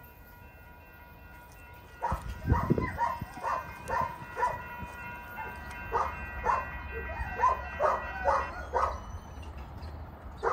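A dog barking repeatedly, starting about two seconds in, a few barks a second with short gaps, over a low rumble.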